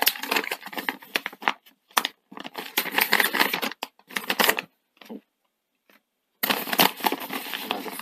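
Paper instruction sheets being opened and handled, rustling and crinkling in three bursts, with small clicks as a thin metal feeler gauge is laid down.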